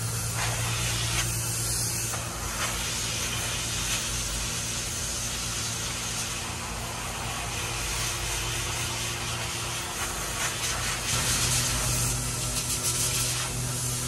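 Compressed air gun hissing steadily as it blows dust out of a HEPA filter, louder in the last few seconds, over a steady low hum.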